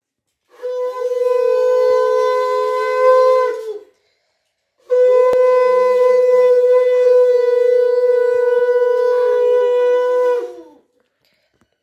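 A conch shell (shankha) blown in two long, steady blasts, the first about three seconds and the second about six, with a short gap between. The pitch sags near the end of each blast.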